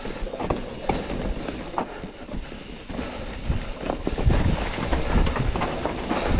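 Mountain bike rolling over a rough trail, with frequent sharp knocks and rattles from the bike and wind rumbling on the microphone.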